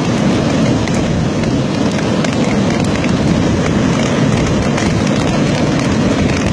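Heavy rain with floodwater rushing down terraced slopes: a loud, steady rushing noise with scattered faint ticks.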